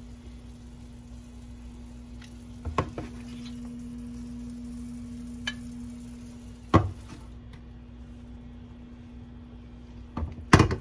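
Snow peas frying in a nonstick pan, with a soft sizzle over a steady hum. Tongs knock against the pan a couple of times, and a louder clatter comes near the end.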